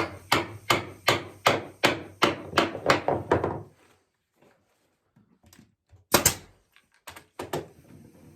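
A run of about ten even hammer blows on wood, roughly three a second, then after a pause a single harder blow and two more. They drive dry rungs into the sockets of green sourwood chair posts.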